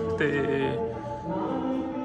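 Sikh devotional hymn singing (kirtan) with long held notes.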